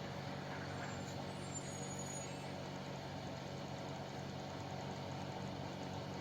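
Faint, steady low mechanical hum with no distinct events, like a machine or engine running in the background.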